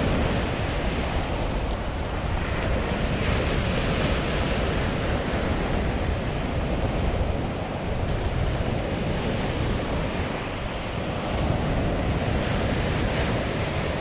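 Small Black Sea waves breaking and washing up a pebble beach: a continuous surf wash that swells and eases as each wave comes in, with a low wind rumble on the microphone.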